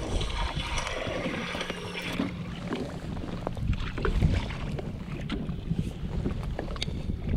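Wind rumbling on the microphone over a small aluminum boat on open water, with a few scattered light knocks. A faint low hum runs for a couple of seconds about two seconds in.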